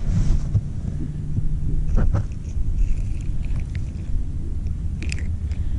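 Low rumble of wind buffeting the microphone, with a steady low hum through the first second or so. Two sharp handling clicks, about two seconds in and near the end, come from unhooking a small yellow perch by hand.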